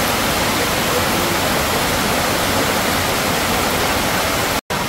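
Heavy rain pouring down in a steady, loud hiss, broken by a split-second dropout near the end.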